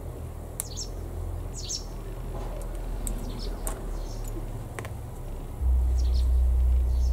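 Light clicks of small hand tools and parts on a workbench, with several faint, short high chirps. A low hum runs underneath and gets much louder for about the last second and a half.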